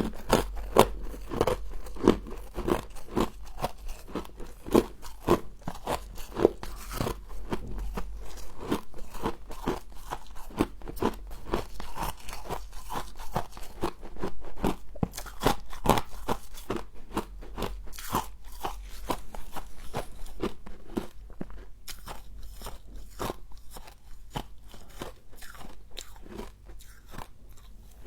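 Humidifier frost being bitten and chewed: a steady run of crisp crunches, about two to three a second, growing a little sparser and quieter near the end.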